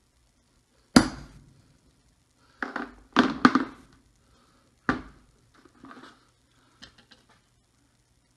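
Hammer blows on a wooden block: one hard strike about a second in, three more close together around the middle and one near five seconds, each ringing briefly, then a few lighter knocks and clicks near the end.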